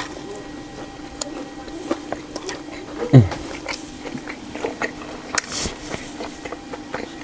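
Close-miked eating: chewing with wet mouth clicks and smacks, over a steady low hum. About three seconds in, a short vocal sound falls in pitch, the loudest moment.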